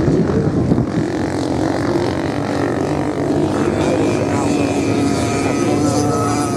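Off-road motorcycle engines running, a steady drone of dirt bikes. From about halfway through, one engine's held note comes through more clearly, wavering slightly in pitch.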